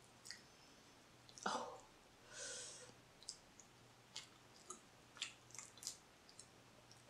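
Faint clicks and cracks of boiled blue crab shell being broken apart by hand, the loudest crack about a second and a half in, with one short hiss about two and a half seconds in.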